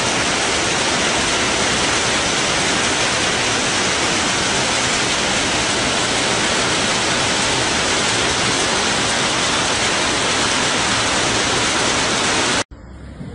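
Torrential rain pouring down in a dense, steady hiss, cutting off suddenly near the end.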